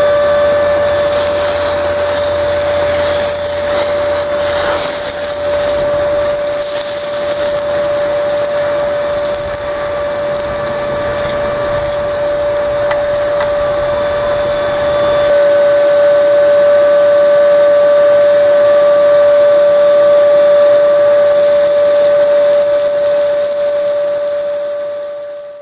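Electric vacuum-type blower feeding air to a forge fire through a hose, running steadily with a high, even whine over a rush of air.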